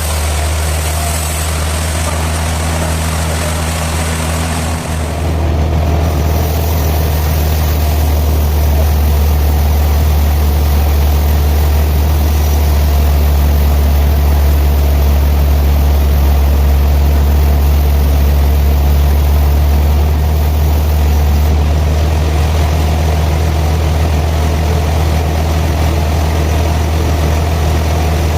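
Sawmill engine running with a steady low drone, growing a little louder about five seconds in and then holding steady.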